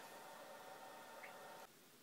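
Near silence: faint room tone that drops lower near the end.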